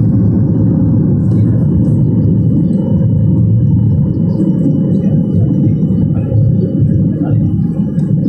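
Steady low rumble of a SpiceJet Boeing 737's jet engines and rushing airflow, heard inside the passenger cabin during the climb after takeoff.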